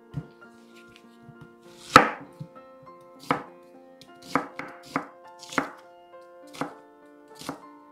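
Chef's knife cutting a white onion on a plastic cutting board: about eight separate strokes at roughly one a second, the loudest about two seconds in.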